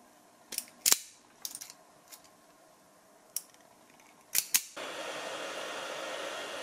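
Automatic wire stripper snapping and clicking as it grips and strips a red wire, a handful of sharp clicks spread over the first four and a half seconds. Then a hot-air heat gun starts blowing steadily, a plain even rush that runs through the last two seconds as it shrinks heat-shrink tubing onto the wire.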